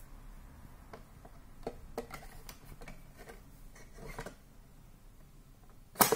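A 7-inch vinyl single being slid into the slot of a red plastic 1970s slot-loading portable record player (a 'comediscos' or 'tragadiscos'). Scattered light clicks and rubs of vinyl against plastic, then one sharp, loud click near the end as the disc is pushed home.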